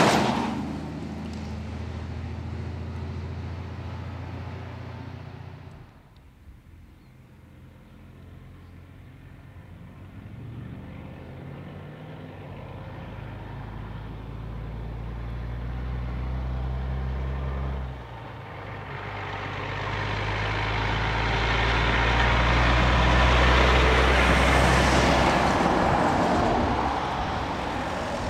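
Heavy diesel semi-trailer trucks on an open road. One truck's engine fades into the distance, then another truck pulls away and works up through the gears with its engine note stepping. Finally a truck approaches and passes, its engine and tyre noise swelling to the loudest point a few seconds before the end and then fading.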